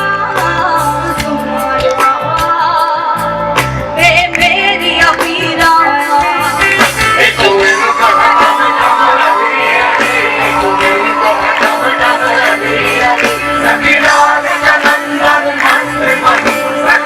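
Live band music, a wavering melodic lead over steady low notes.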